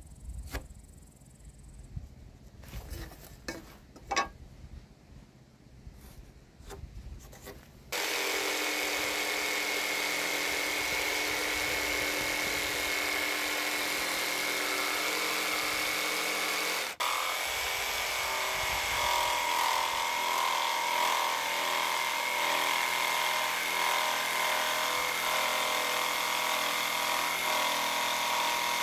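Cordless jigsaw cutting through a softwood timber beam: it starts suddenly about eight seconds in and runs steadily, stops for an instant about halfway through, then carries on with a slightly changed tone. Before it starts, a few light knocks and scratches of marking and handling the timber.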